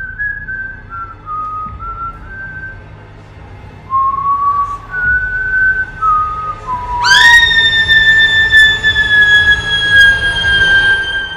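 A slow, eerie whistled tune of single wavering notes, then, about seven seconds in, a woman's loud, long, high-pitched scream that is held and slowly sags in pitch.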